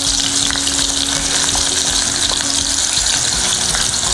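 Sliced onions sizzling steadily in hot oil in a steel kadai as they fry toward golden brown, stirred with a wooden spatula that gives a few faint scrapes and ticks.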